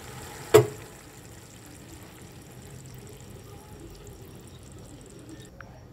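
Olives in thick jaggery syrup bubbling in a steel pan, with one sharp knock about half a second in. The higher hiss cuts off near the end.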